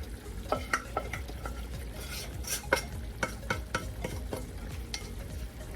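Utensil stirring chicken pieces in a pan, knocking and scraping against it about once or twice a second, over a steady sizzle as the chicken cooks in its own released juices.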